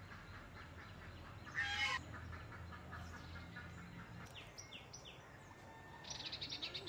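Birds chirping and calling, with one short, loud call about one and a half seconds in and a quick run of high chirps near the end.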